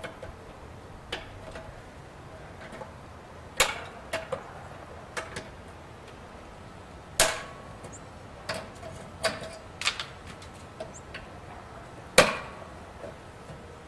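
Screwdriver and pliers working a knockout slug loose from a metal breaker box: irregular sharp metallic clicks and taps, with three louder knocks that ring briefly.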